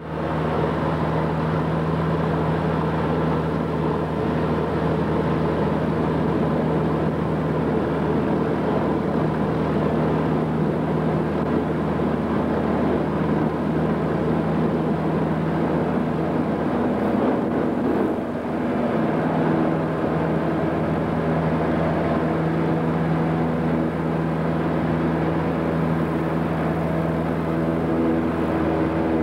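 Cessna 150's Continental O-200 four-cylinder engine and propeller heard from inside the cabin: a steady drone, briefly dipping about eighteen seconds in.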